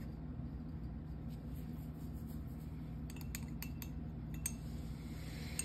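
A handful of light clinks and taps, bunched between about three and four and a half seconds in, as a paintbrush and hard painting dishes are handled, over a steady low hum.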